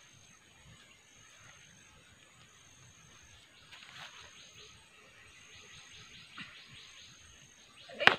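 Faint scratching and scraping of soil as it is dug and scooped by hand with a small digging tool, with one sharp knock near the end.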